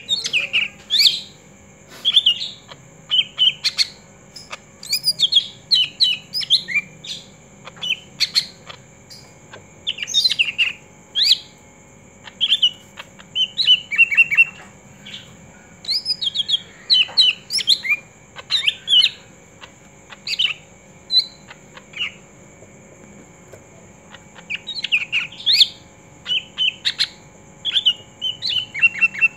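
Green leafbird (cucak ijo) singing in its cage: clusters of quick, sharp chirps and whistled notes with short pauses between, and a quieter gap about two-thirds of the way through. A faint steady high tone runs underneath.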